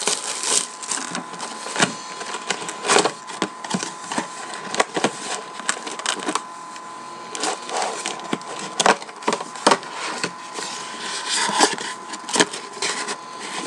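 Trading-card packaging being torn open and handled: a cardboard hobby box and its packs crackling, snapping and ripping in irregular bursts.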